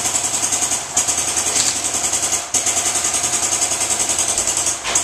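Airsoft electric M14 rifle firing on full auto: a rapid, even buzz of shots, about eight a second, in three bursts with short breaks between.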